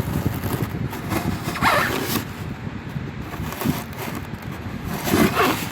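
Scraping and ripping sounds of hand work on a styrofoam ice chest, with two louder drawn-out strokes, one about two seconds in and one near the end, over a steady low rumble.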